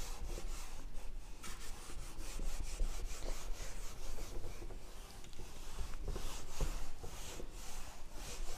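Wooden-backed whiteboard duster wiping across a whiteboard in repeated rubbing strokes.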